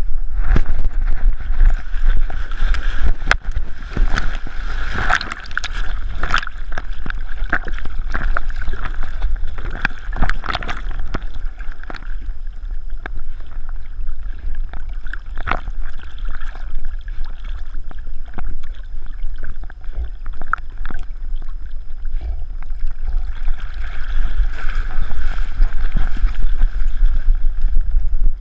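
A camera strapped to a dog's back picks up knocks and jolts as the dog moves over gravel, then water sloshing and gurgling around it as it swims through the river in the middle, with the knocking coming back near the end as it climbs out onto the gravel.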